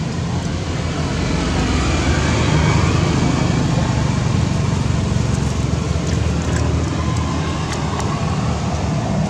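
Steady low rumble with an even hiss over it, with no distinct events apart from a few faint clicks near the end.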